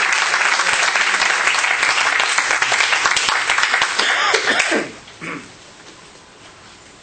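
Audience applause, many people clapping densely, dying away quickly about five seconds in, with one short sound just after.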